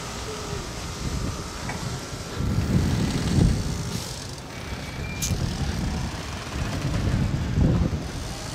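Low, gusty rumble of wind buffeting the microphone, swelling about two and a half seconds in and again near the end, with one brief sharp tick midway.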